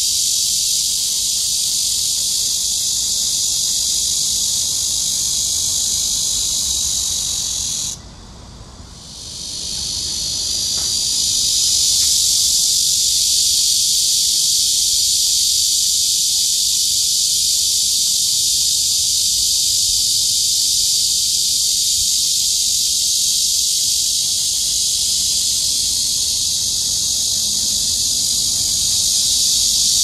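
Cicada song: a loud, steady, high hissing buzz. It cuts off suddenly about eight seconds in, then swells back up over the next few seconds and holds steady again.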